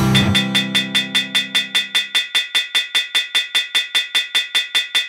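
Thirty Dollar Website's sampled anvil sound, clanking in a fast, even run of about six strikes a second. Over the first two seconds the low notes of the preceding guitar section ring out and fade beneath it.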